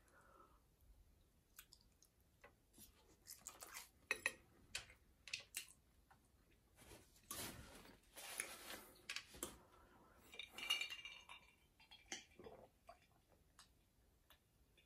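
Faint clinks and scrapes of a metal fork against a glass dish as noodles are picked up, with a stretch of chewing in the middle.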